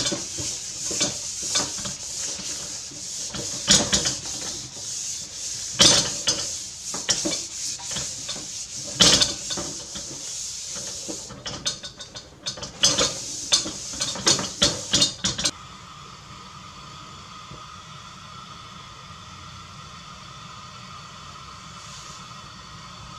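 Paper towel wiping oil around the inside of a new round-bottom wok, a series of irregular rubbing strokes against the metal. The wiping stops about two-thirds of the way in, leaving a steady hum.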